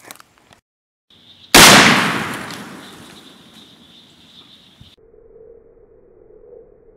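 A single 12-gauge shotgun blast fired with buckshot, about a second and a half in, its echo dying away over the next second or so.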